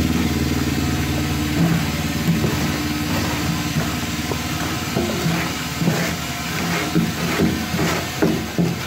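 Plaster spraying machine running steadily while leftover material is cleared from its hose, with irregular knocks and clicks from about five seconds in.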